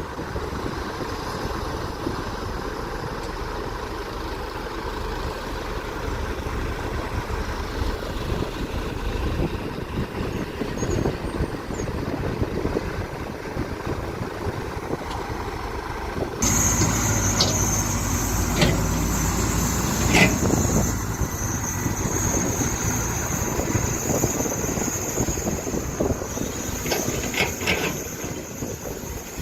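Excavator diesel engines running steadily. About halfway through, the sound switches abruptly to a louder stretch with a high steady squeal and scattered metallic clanks.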